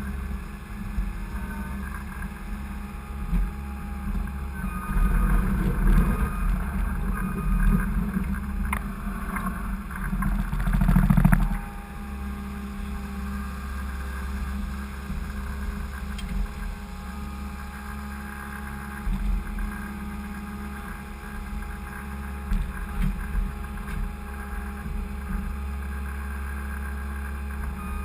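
Skid steer engine running, louder and rougher for several seconds in the first half, then settling back to a steady drone.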